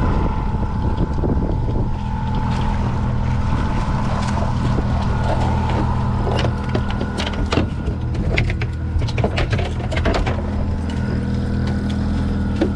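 Boat motor running steadily at trolling speed, with scattered sharp clicks and knocks, most of them in the second half.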